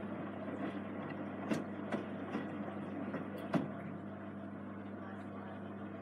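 Samsung eco bubble WW90J5456FX washing machine washing: the drum turning with sudsy water sloshing over a steady motor hum. A few sharp clicks come in the first half.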